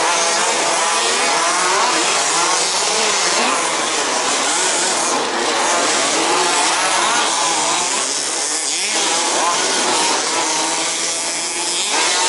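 Several 1/5th-scale petrol two-stroke RC off-road buggies racing, their small engines buzzing and revving up and down over one another.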